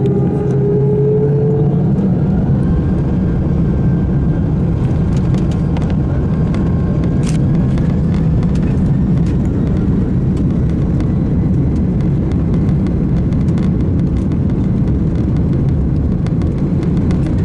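Inside the cabin of an Airbus A310-300: steady, loud jet engine and air noise, with a faint whine rising in pitch over the first second or two and scattered faint clicks around the middle.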